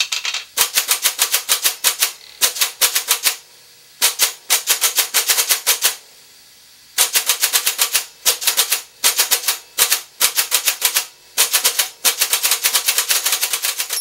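Monotype keyboard being typed on: each key press fires its punches through the paper ribbon, giving runs of sharp clacks at about seven a second, with short pauses about three and a half and six seconds in.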